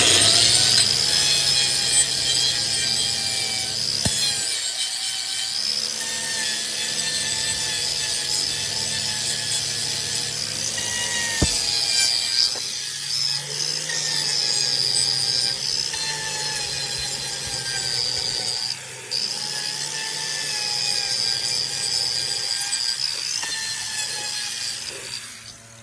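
Electric angle grinder with a wood carving disc running at full speed and grinding a small tree stump down flush with the concrete: a steady high whine mixed with the rasp of wood being chewed away. It starts abruptly and cuts out just before the end, with a few brief dips as the disc bites.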